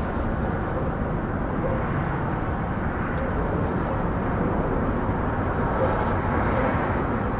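Steady background rumble, like distant traffic, picked up by an outdoor owl nest-box camera microphone.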